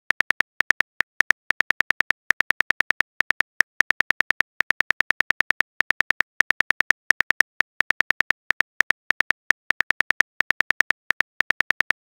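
Simulated phone-keyboard key clicks from a texting-app animation, a short sharp tick for each letter typed, in an uneven run of about five a second.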